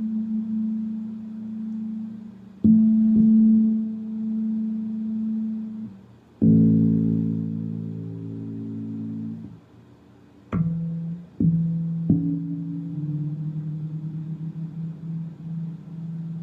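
Headless electric bass with a fretless neck being plucked: long notes left to ring, sometimes two together, with a new pluck every few seconds and a wavering note near the end.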